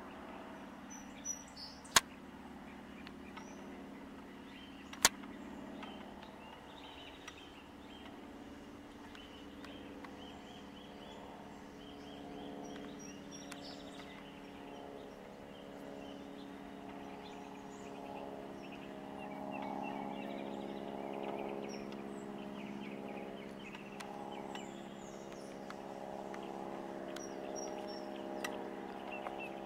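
A steady mechanical hum of several even pitches, growing a little louder past the middle, with faint high bird chirps above it. Two sharp clicks come about two and five seconds in.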